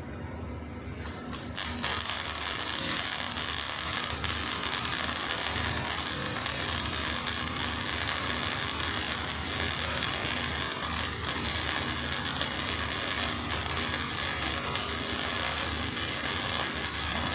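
MIG welding arc crackling steadily through one continuous bead, starting about a second and a half in, over a low electrical hum. The machine is running at settings judged right for the weld.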